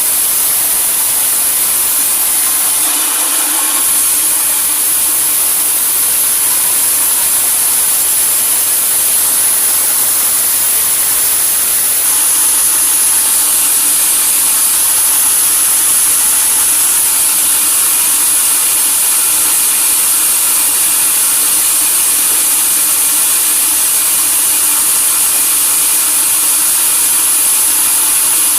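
Sawmill saw running steadily, cutting through a log.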